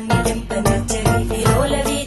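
Background music with a steady beat and melody.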